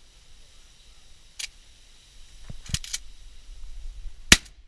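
Shotgun shots: several sharp reports, a cluster about halfway through and the loudest one near the end.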